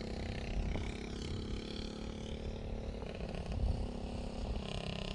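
Go-kart engine running as the kart laps the track, its note rising and falling, with a steady low rumble underneath.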